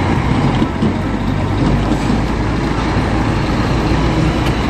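Diesel engine of a tanker truck hauling two fuel-tank trailers, running with a steady low hum as the rig creeps forward.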